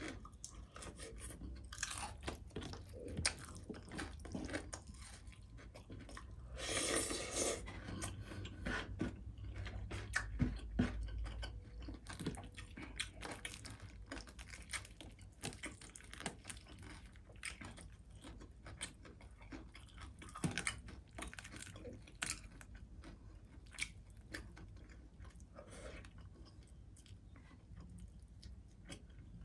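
Close-miked chewing and crunching of crispy fried tilapia, with crackles as the fried fish is pulled apart by hand. One longer, louder crunch comes about seven seconds in.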